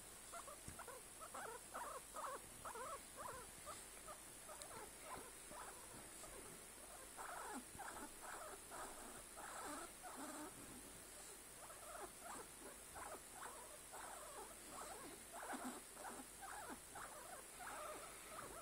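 Guinea pig making soft, quick pulsing calls, several a second, in runs with short pauses, while being stroked.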